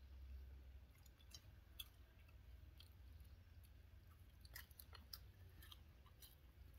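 Faint eating sounds of people eating rice with their fingers: soft chewing and scattered light clicks and scrapes of fingers and food on plates, over a low steady hum.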